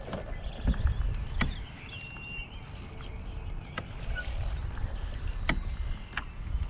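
Kayak fishing sounds: a low rumble with irregular sharp clicks and knocks of fishing gear being handled in a kayak, and faint bird chirps in the background.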